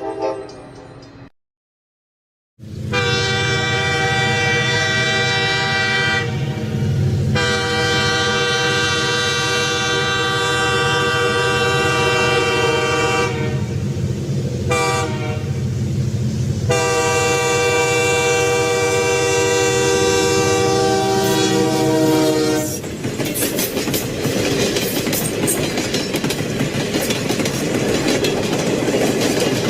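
Train horn sounding four blasts, long, long, short, long (the grade-crossing warning signal), over a steady low locomotive rumble. Near the end the horn stops and the train runs past, its wheels clacking over the rail joints.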